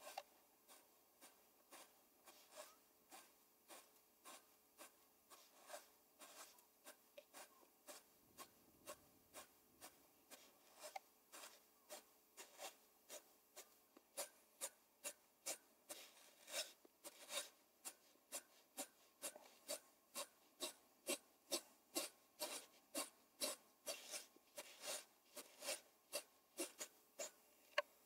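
Flax fibres being drawn through the steel teeth of a flax hackle, a dry scraping stroke repeated about twice a second, louder in the second half. This is hackling, the final combing that aligns and cleans the fibres and separates the long line flax from the short tow.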